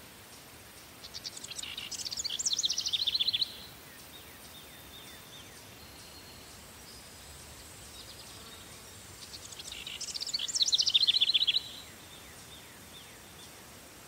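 Farm ambience: a songbird sings the same song twice, about eight seconds apart, each a rapid run of notes that grows louder and stops abruptly, over a faint steady background of crickets.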